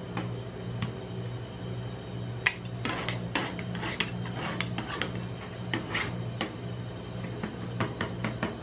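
Two steel spatulas chopping and scraping ice cream mixed with crushed Pringles on a metal cold plate: irregular clicks and scrapes of the blades on the plate, sparse at first and much busier from about two and a half seconds in, over a steady low hum.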